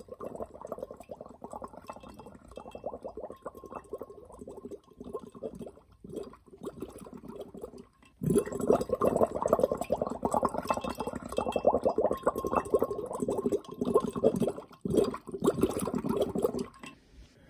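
Water bubbling and gurgling, quieter at first, then suddenly louder from about eight seconds in, and stopping shortly before the end.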